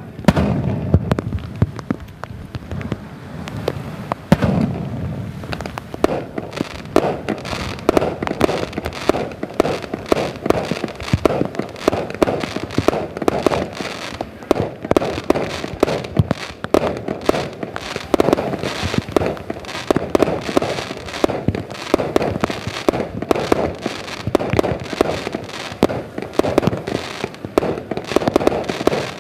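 Fireworks display: booming shell bursts near the start and again about four seconds in, then a dense, continuous run of rapid bangs and crackling pops many times a second.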